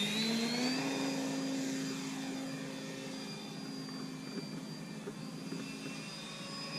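Electric RC plane motor (Propdrive 2830-1000 brushless) turning a 10x4.5 propeller at takeoff power. Its whine rises in pitch during the first second, then holds steady and slowly fades as the model climbs away.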